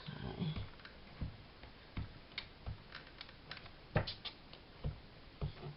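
Scattered light taps and clicks of paper and card being handled and set down on a work surface, irregularly spaced, the sharpest about four seconds in.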